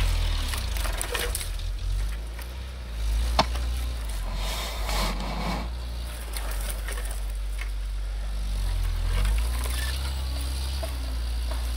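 UAZ Patriot SUV's engine running at low revs as it pushes slowly through deep snow, with a short swell in revs near the end. A single sharp click about three and a half seconds in.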